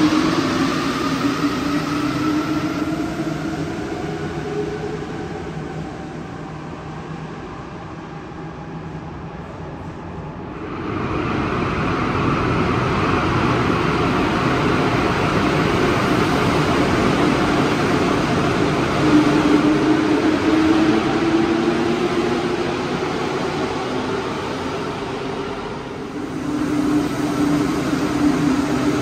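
Alstom metro trains on Santiago Metro Line 2 moving through a station. A train's motor whine glides and fades over the first several seconds. About eleven seconds in, rolling noise rises sharply as another train comes through, with a motor whine that rises and falls and dips briefly about four seconds before the end.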